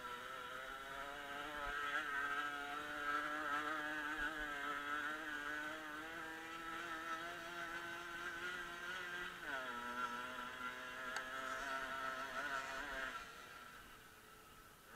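Dirt bike engine running under steady throttle, its note creeping slowly higher. About nine and a half seconds in the pitch drops suddenly and then climbs again, and the engine fades away near the end.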